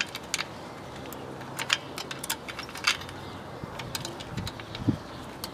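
Light metallic clicks and clinks of rear drum-brake shoe hardware being handled as a small retaining clip is fitted, about a dozen irregular taps spread through.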